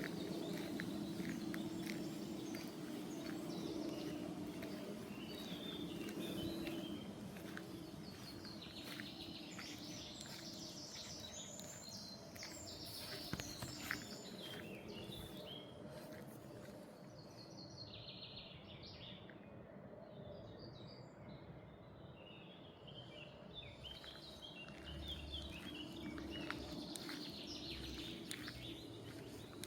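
Songbirds singing in short chirping phrases over steady outdoor background noise. A low hum sits underneath, fading after about seven seconds.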